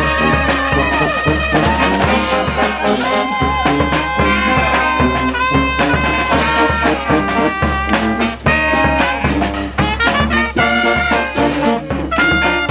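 Street brass band playing: trumpets, trombones and saxophones sounding held and moving notes together over a steady low beat.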